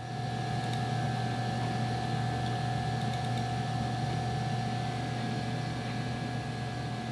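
A steady machine hum: a low drone with a couple of higher steady tones over a light hiss, unchanging throughout.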